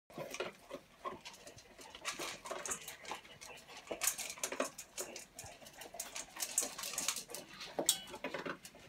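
Two flat-coated retrievers eating from stainless steel bowls: steady, irregular chomping and smacking, with sharp clicks as teeth and food knock against the metal bowls, one ringing clink near the end.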